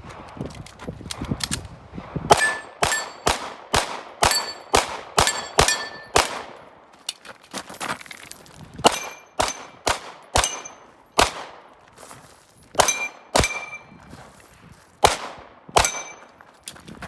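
Rapid 9mm gunfire at steel targets: a quick string of sharp shots, each answered by the clang and brief ring of a hit steel plate. There are short pauses between strings, around seven and fourteen seconds in.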